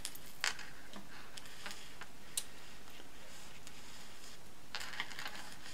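Angled ratchet screwdriver clicking while a needle-plate screw on an industrial sewing machine is tightened: a few scattered single clicks, then a quick run of clicks about five seconds in.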